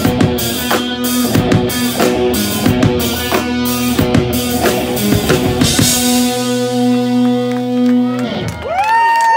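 Live rock band playing, with drum kit beats and strummed electric guitar. About six seconds in, the drums stop and a final guitar chord rings out for about two seconds as the song ends. Near the end, the crowd cheers with rising and falling whoops.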